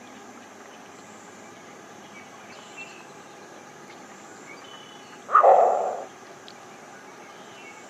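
Green heron giving one short, harsh, sharp call about five seconds in. Faint background outdoor noise.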